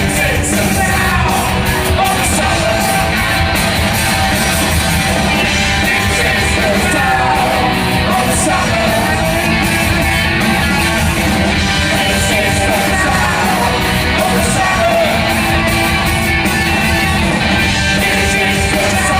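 Live punk rock band playing loudly with singing over the music.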